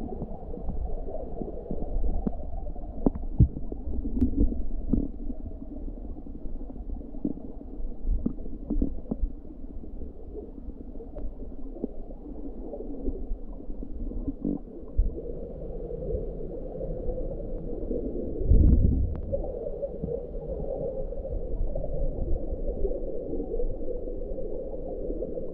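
Flowing river water heard underwater: a muffled, low rumble with scattered small clicks and knocks, and a heavier low thump about eighteen seconds in.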